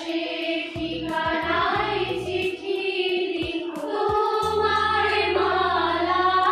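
A group of young women singing a song together, their voices moving as one through a slow melody.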